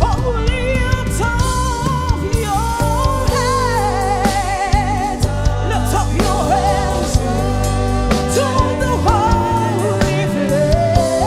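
Gospel worship music: a singer holds long notes with a wide vibrato over a steady bass line and drums.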